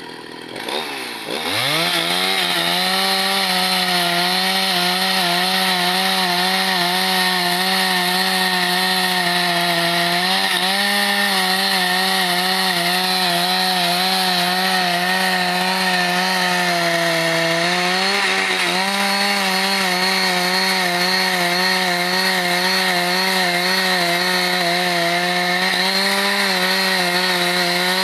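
Husqvarna two-stroke chainsaw revving up to full throttle about a second in, then running steadily at high speed while sawing eucalyptus wood. Its pitch sags briefly a few times.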